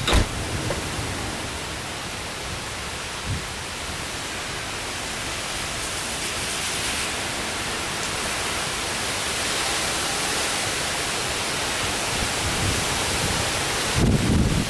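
Steady, even rush of a thunderstorm's rain and wind, swelling slightly in the middle. A short knock comes right at the start and a brief low thump near the end.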